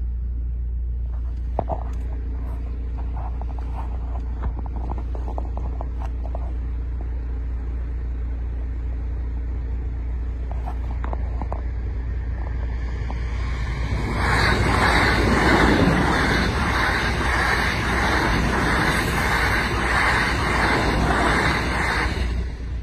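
A train passes over a level crossing, heard from inside a car waiting at the barriers. Over the car's steady low hum, the train comes in loud about two-thirds of the way through with an even clatter of roughly two beats a second. It stops suddenly near the end as the train clears the crossing.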